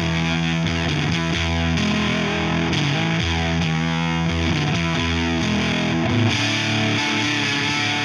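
Electric guitar played through a Veri-Tone Beehive hand-wired fuzz pedal into a Fender Hot Rod Deluxe amp. It plays heavily distorted held notes and chords that change about once a second, and the tone turns brighter about six seconds in.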